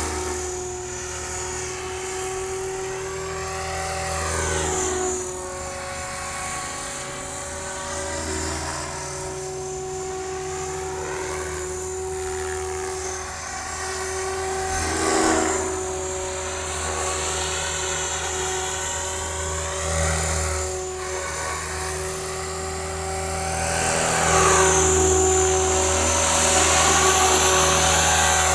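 RJX Vectron 520 radio-controlled helicopter in flight: its rotors and drive give a steady whine over a low hum, which swells and fades as it moves about. It grows louder near the end as it comes in low and close.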